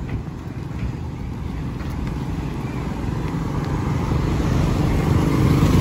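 Road traffic: a passing vehicle's engine and tyre noise grows louder over the last couple of seconds, over a steady low rumble.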